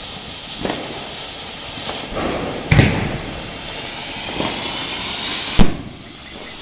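Ground fountain firework (anar) spraying sparks with a steady hiss, broken by several sharp bangs, the loudest about a third of the way in and one just before the end.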